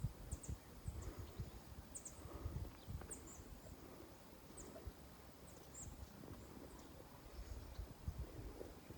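Small birds chirping: short, high, quick calls that come often at first and thin out after a few seconds, over a low uneven rumble.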